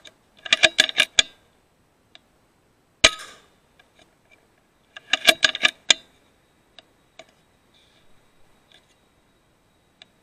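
Suppressed .22 PCP air rifle (FX Impact M3) firing a single sharp shot about three seconds in. Around it, two quick runs of sharp clattering knocks, one near the start and one a little past the middle, followed by a few faint ticks.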